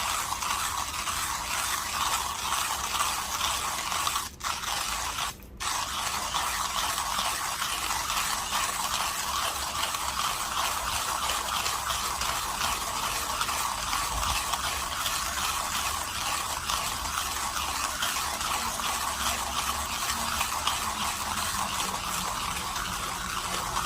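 Millwright hand grinder's burrs crunching coffee beans at an espresso grind setting as the handle is cranked, a continuous gritty crackle. It breaks off briefly twice, about four and five and a half seconds in.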